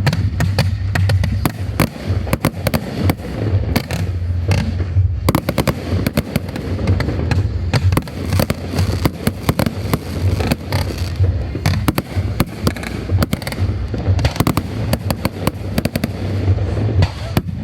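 Aerial fireworks going off in quick succession: a dense run of sharp cracks and bangs, several a second, over a continuous low rumble.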